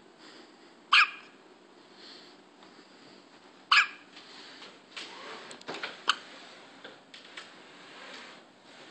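Newborn baby hiccuping: two short sharp hiccups about three seconds apart, the first about a second in. Faint rustling and a sharp click follow about five to six seconds in.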